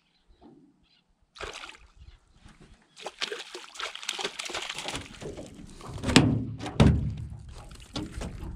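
Hooked fish splashing and thrashing in the water, irregular sloshing with two heavier thumps about six and seven seconds in.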